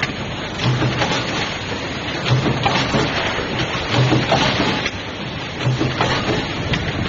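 Automatic hex nut forging line running: a dense clattering hiss with scattered knocks, and a short low hum that comes back about every second and a half in an even machine rhythm.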